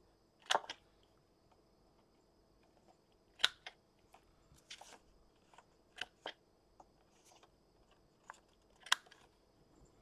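Handheld corner rounder punch snapping through cardstock, several sharp clicks a second or two apart as paper corners are punched, with light paper handling between.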